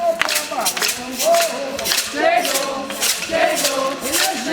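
Brazilian percussion band drumming a steady beat, about two or three sharp hits a second, with a group of voices singing over it.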